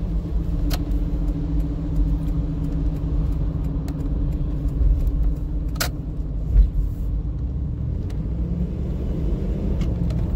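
Steady engine hum and road rumble inside the cabin of a car being driven at low speed. Two short sharp clicks come through, about a second in and again near six seconds.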